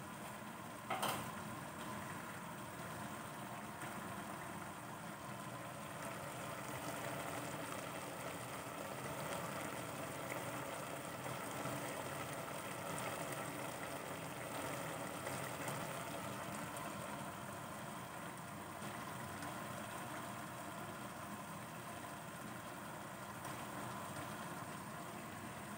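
Pot of coconut-milk stew simmering on a lit gas burner: a steady bubbling and burner hiss. A single sharp clink about a second in.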